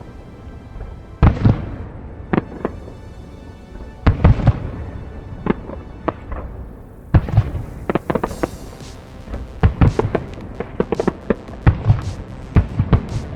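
Fireworks display: aerial shells bursting with booming bangs every second or two, then a dense run of rapid crackling from about eight seconds in, with music playing underneath.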